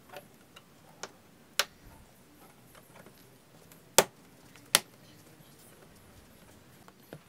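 Sharp clicks of plastic push-in trim clips and the plastic splash guard being pressed into place at a car's rear wheel arch: about six scattered clicks, the two loudest close together just past the middle.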